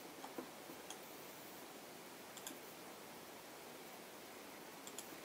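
A few sparse, faint clicks of a computer mouse and keyboard over a low steady hiss.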